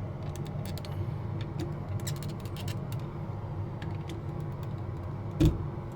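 Small clicks of a plastic plug-in receptacle tester being handled, then one sharp click-thud about five and a half seconds in as it is pushed into the new GFCI outlet, over a steady low hum.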